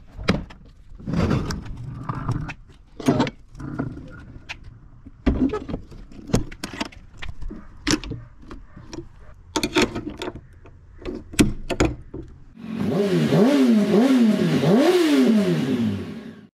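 Metal clanks and knocks of an enclosed cargo trailer's ramp door and latch bars being shut and locked. Near the end, an engine revs up and down several times.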